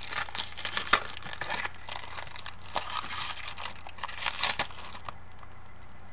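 Crinkling and tearing of a foil trading-card pack wrapper being handled and opened, a dense run of crackles that stops about five seconds in.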